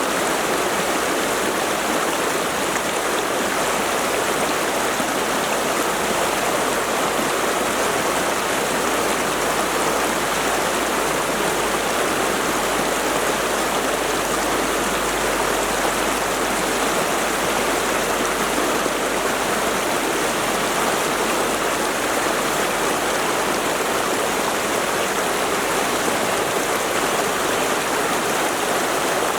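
Mountain stream rushing over rocks, a steady, unbroken flow of water.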